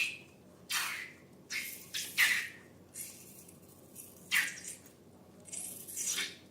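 Slime being squeezed and worked by hand: a run of short wet squelches, about eight, some sliding down in pitch.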